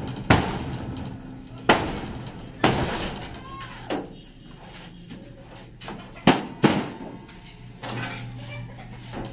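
Hammer blows on sheet-metal siding being knocked loose, about seven loud clanging bangs at irregular intervals, each ringing on briefly.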